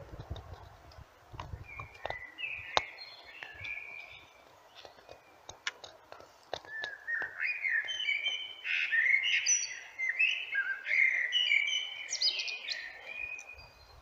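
Common blackbird singing: a short fluty phrase about two seconds in, then a longer, louder run of warbling phrases from about six seconds in until just before the end. Scattered sharp clicks are heard alongside.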